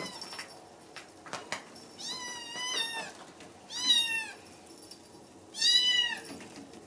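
Japanese Bobtail kitten meowing three times, high-pitched calls, the first about a second long and the last the loudest.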